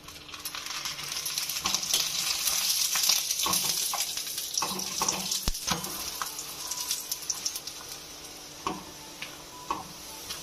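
Ghee sizzling and crackling on a hot tawa under a frying bathua paratha. The sizzle swells over the first couple of seconds after the ghee goes on, then slowly eases, with scattered pops throughout.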